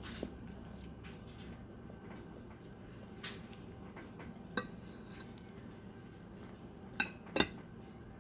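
A few light clinks and taps of tableware during a meal, scattered over a quiet room. The sharpest come about halfway through and as two close together near the end, each ringing briefly.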